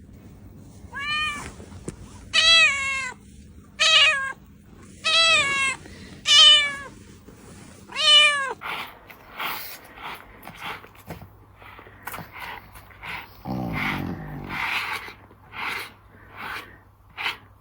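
Domestic cat meowing six times, about one call every second and a half, each call rising then falling in pitch. The meows stop about halfway through, and a run of irregular scratchy, crackling noises follows.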